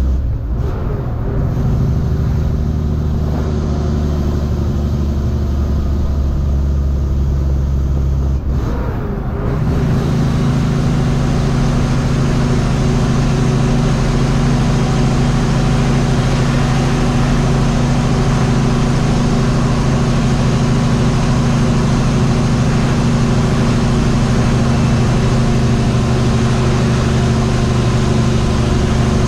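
Semi-truck's diesel engine running under way with a steady drone. About eight and a half seconds in, its note steps up to a higher pitch and holds there.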